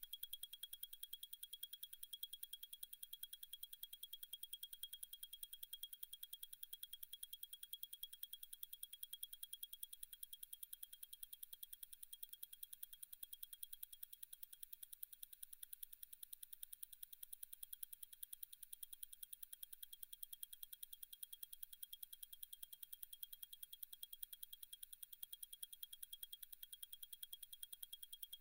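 Zenith Chronomaster Sport's El Primero 3600 automatic chronograph movement ticking: a faint, rapid, perfectly even beat of ten ticks a second, the high-beat 36,000 vibrations-per-hour balance.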